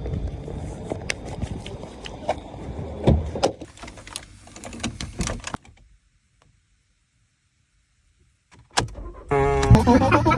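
Sounds of handling a car: a low rumble with many sharp clicks and jangles like keys and door or window mechanisms. These cut off suddenly into a few seconds of silence. Near the end a loud electronic sound starts, jumping up in pitch and then wavering.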